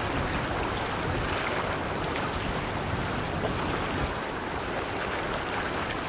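Steady rushing noise of wind on the microphone and choppy river water, over a faint low rumble.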